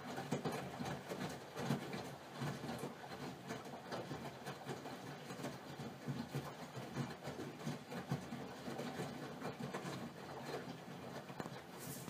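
AEG Öko-Lavamat 84720 front-loading washing machine turning its drum in the wash cycle: wet laundry tumbling and water sloshing, with irregular soft thuds.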